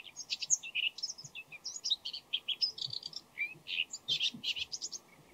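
Bull-headed shrike giving a fast, varied run of short high chirps and whistled notes, several a second without a pause. It is a jumble of different voices that could be song, subsong or mimicry of other birds.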